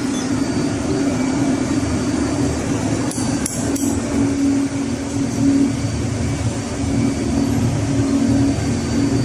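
Steady, loud drone of running engine-room machinery. About three seconds in come a few light metallic taps as a hammer works a pin on the fuel pump parts.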